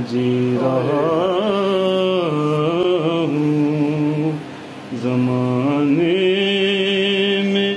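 A man singing Urdu devotional verse (kalam), drawing out long, wavering melismatic notes in two phrases, with a short break for breath about four and a half seconds in.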